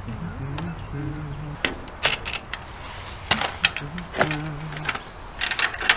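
Cordless drill-driver running in short bursts, driving screws for a metal door latch into wood, with sharp clicks and knocks from the latch and screws and a quick cluster of clicks near the end.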